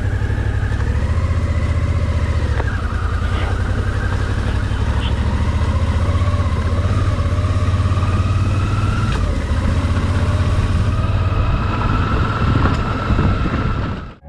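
Motorcycle engine running at a steady road speed over a heavy low rumble of wind and road noise, its pitch wavering slightly with the throttle. The sound cuts off abruptly just before the end.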